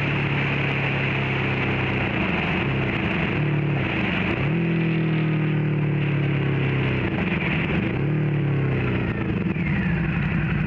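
Harley-Davidson V-Rod's V-twin engine running at road speed, heard from the rider's seat over wind rush. The engine note drops and picks up again twice, about four and eight seconds in.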